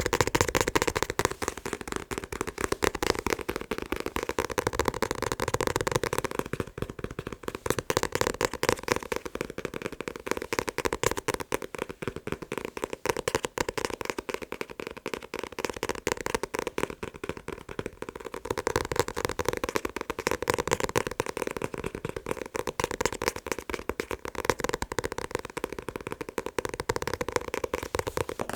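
Rapid, continuous fast tapping on a manga book, a dense stream of quick taps with no pauses.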